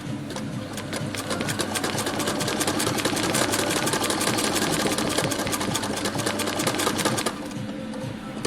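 Antique Singer sewing machine running, its needle and mechanism clattering in a fast, even run of stitches. It stops abruptly about seven seconds in.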